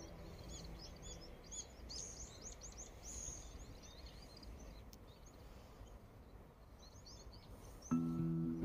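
Small birds chirping and twittering in the trees, many quick high calls over the first few seconds, then fewer, over a low steady outdoor background noise.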